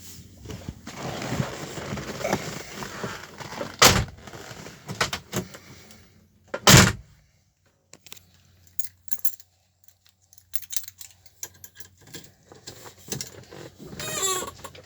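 Keys jangling and rustling, then two heavy thuds about four and seven seconds in, the second the loudest, followed by scattered light clicks and a short rattle near the end.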